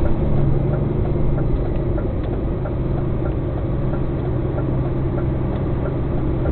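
Semi-truck's diesel engine running steadily at low speed, heard from inside the cab, with a few faint ticks over it.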